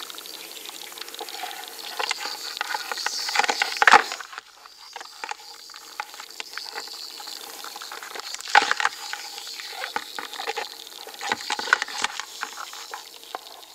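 A single manicou crab tapping and scrabbling as it moves its claws: an irregular run of dense clicks and scratches, with louder clusters about four seconds in, about eight and a half seconds in, and near the end.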